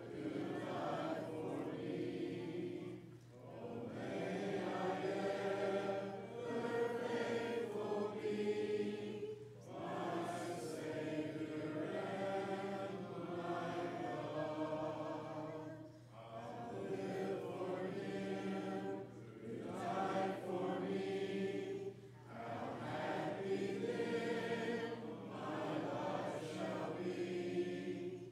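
A congregation singing a hymn a cappella, voices only with no instruments, in phrases of a few seconds with short breaks for breath between them.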